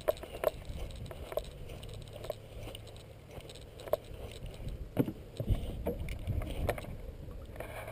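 Scattered knocks and rustles from a body-worn action camera jostling as the wearer moves, over a low wind rumble on the microphone that gets stronger in the second half.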